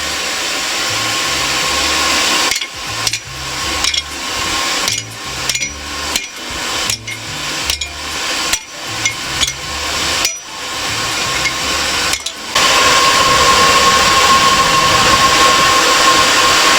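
Hand hammer striking hot 5 mm mild steel plate being forged into a firepot, about a dozen irregular blows in the middle of the stretch. Under them runs a steady rushing noise with a thin whine, which grows louder after the hammering stops.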